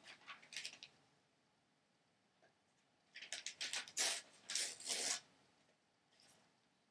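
Rustling and rubbing handling noises in short bursts: a cluster right at the start and a louder cluster about three to five seconds in.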